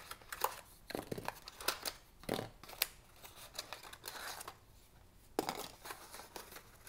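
Cardboard packaging being handled: a box's inner tray slid and tapped and its contents lifted out, giving irregular clicks, taps and scrapes, with a rustle around four seconds in.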